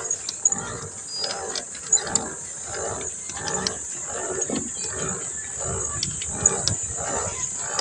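A person breathing hard in rhythmic puffs, about two a second, from the effort of pedalling a pedal boat. A steady high hiss runs behind it.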